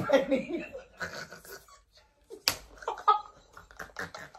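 One sharp open-handed slap to the face with a hand dusted in baby powder, about two and a half seconds in, followed by laughter.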